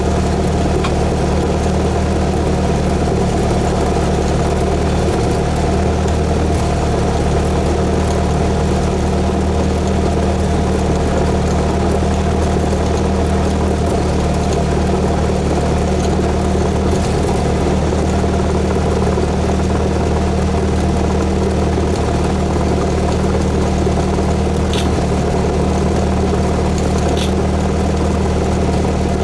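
Cessna 172S's Lycoming IO-360 four-cylinder engine and propeller running at a steady, unchanging power, a constant drone, with two faint ticks near the end.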